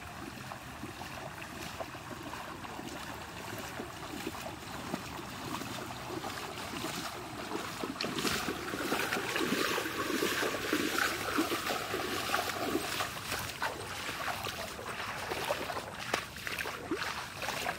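Water running and splashing in flooded paddy fields, steady throughout and louder with more splashes in the middle.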